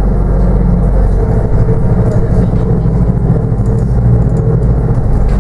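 Steady low drone of a New Routemaster diesel-electric hybrid bus under way, with road rumble, heard from inside the passenger saloon.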